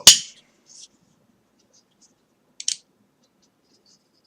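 Cold Steel Recon 1 folding knife with its Tri-Ad lock: one sharp, loud snap as the blade is opened one-handed and locks, then a softer double click about two and a half seconds in, with a few faint handling ticks.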